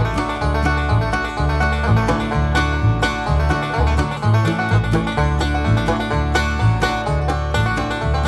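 Background music: an upbeat country-style tune with plucked strings such as banjo and a steady bass beat.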